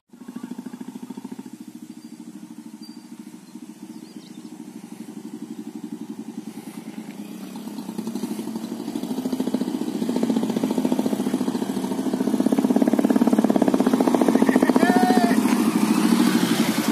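An engine running steadily with a fast, even pulse, growing louder through the second half.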